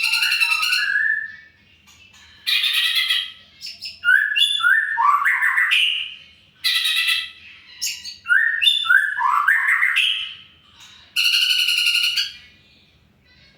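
A caged songbird singing, repeating a phrase of long harsh, buzzy notes about a second each, alternating with runs of quick rising whistled chirps.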